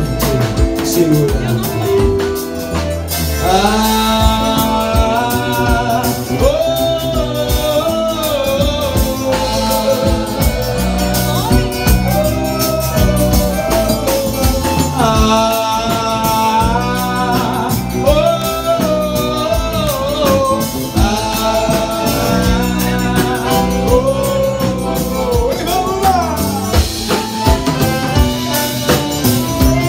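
Live forró pé-de-serra band playing: accordion, zabumba bass drum and drum kit keep a steady dance beat under a lead melody with rising and falling phrases.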